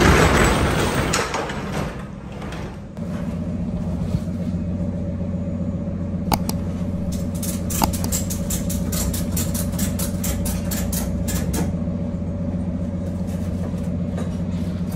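Low steady hum of an idling engine. From about 6 to 11 seconds in, a quick even run of clicks, about four or five a second, typical of a cargo ratchet strap being cranked tight.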